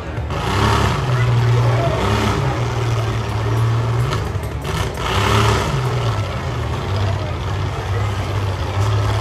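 Demolition derby trucks and SUVs running, their engines revving up and falling back in short bursts over a steady low drone. Several sharp knocks of metal on metal come as the vehicles ram each other, a few seconds apart.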